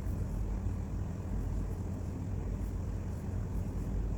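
Steady low rumble of background noise, even throughout.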